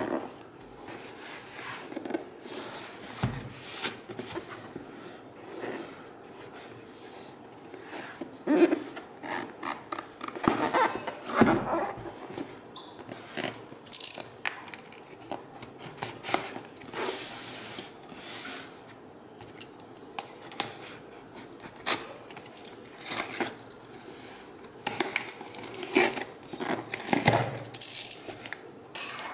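Cardboard shipping box being handled and opened: irregular scrapes, taps and rustles as a small knife slits the packing tape and the cardboard flaps are pulled back.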